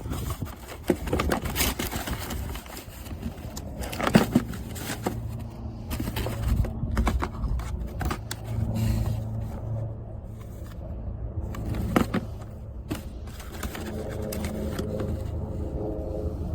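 Small battery chainsaw running with a steady hum, with scraping and sharp cracks from wood being cut.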